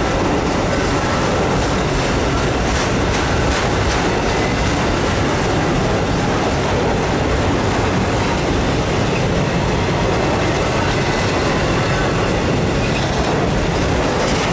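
Autorack freight cars of a passing freight train rolling by close: a loud, steady rumble of steel wheels on rails, with occasional clicks.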